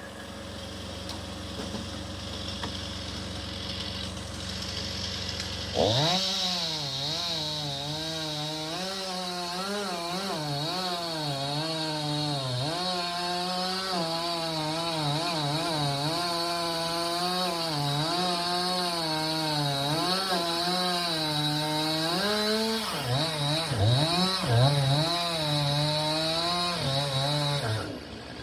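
Chainsaw cutting through a tree during tree felling. It comes in loudly about six seconds in over a steady low engine hum. Its pitch wavers up and down as it works under load, with a few quick surges and drops near the end before it stops.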